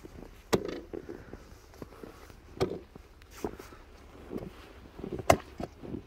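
Steel ice spud bar striking snow-covered lake ice, several sharp hits spread a second or two apart, the loudest one about five seconds in. The bar goes through in about one hit: the ice is thin and unsafe.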